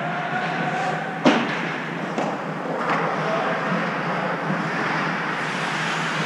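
Ice hockey game ambience in an arena: a steady wash of rink noise with a sharp knock about a second in and a couple of fainter knocks later.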